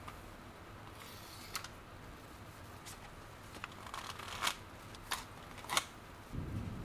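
Paper and cardboard watch packaging handled: a string of short dry rustles and sharp paper snaps as a metal mesh watch strap is slid out of its paper holder, busiest in the second half. A low steady rumble comes in near the end.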